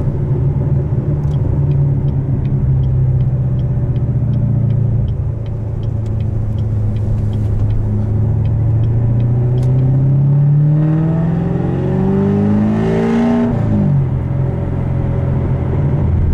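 Modified 2015 Chevrolet Corvette C7 Stingray's 6.2-litre LT1 V8, with headers, a cam and an exhaust with no muffler, heard from inside the cabin and very loud. It runs steadily at cruise, then the revs climb smoothly for about seven seconds and drop sharply about thirteen seconds in. A light regular ticking, about three a second, runs under it through the first ten seconds.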